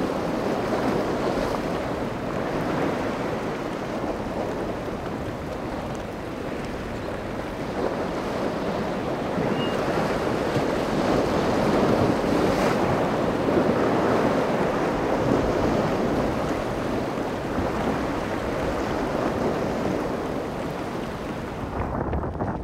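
Wind blowing on the microphone over breaking surf in stormy weather: a steady rushing noise that swells about halfway through and eases off again.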